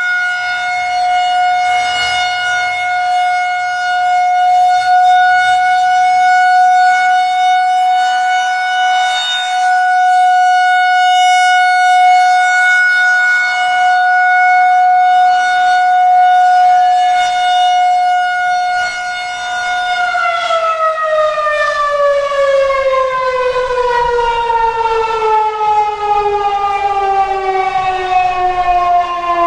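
Federal Signal 2001-130 rotating electromechanical tornado siren sounding a steady full-alert tone. About twenty seconds in it is shut off and winds down, its pitch falling steadily.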